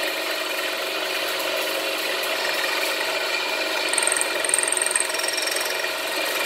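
Power tool cutting valve reliefs into a motorcycle piston crown, running steadily, with a thin high squeal that comes and goes about four to five seconds in.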